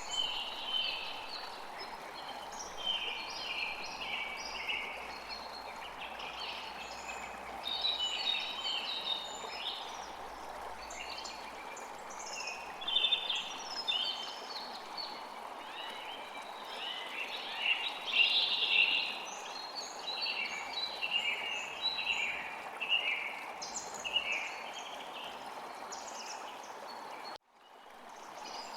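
Many small birds chirping and calling in quick overlapping phrases over a steady hiss of wind. Near the end the whole soundscape cuts out suddenly and fades back in.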